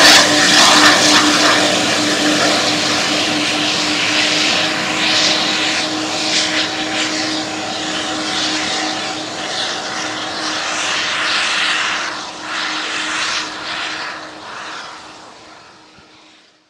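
Twin-jet Airbus A330 airliner's engines running as it rolls away down the runway after landing: a rushing jet noise with a steady hum beneath it, loudest at first and fading away until it dies out near the end.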